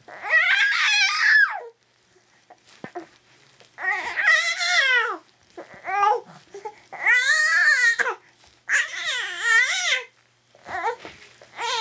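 Young infant fussing and crying in a series of short, high-pitched wails, about six of them with brief pauses between.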